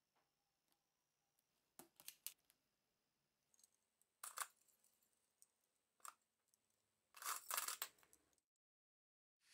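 Metal binder clips clicking and clattering as they are handled and set down on a workbench top, in several short bursts, the longest near the end.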